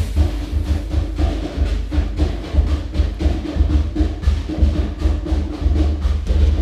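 Background music with a heavy bass and a steady drum beat.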